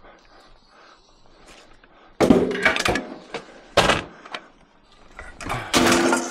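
Pieces of scrap metal being thrown down and clanging: three loud hits, about two, four and six seconds in, the first and last ringing on briefly after a quiet stretch of handling.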